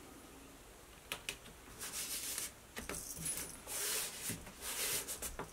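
Hands pressing and smoothing a cork sheet onto a cupboard door, making several short rubbing swishes with scattered light clicks and clinks.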